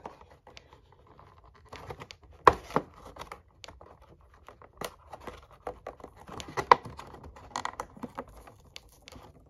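Hands handling a Barbie doll box with a clear plastic window: irregular taps, clicks and plastic crinkling, with two sharper knocks, one about two and a half seconds in and one near seven seconds.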